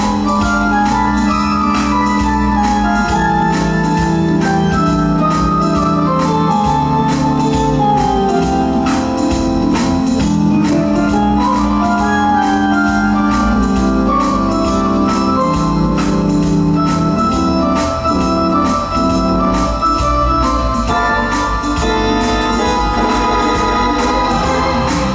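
Hammond X-66 organ playing a melody over sustained chords, with a steady percussion beat underneath.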